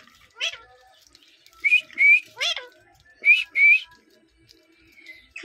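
Pet parakeet giving short whistled calls in pairs, two pairs, with a couple of quick sweeping chirps between them.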